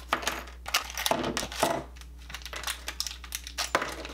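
Small electronic parts and their plastic packaging being handled on a desk: irregular clicks, light clatter and crinkling, with the busiest stretch in the first two seconds.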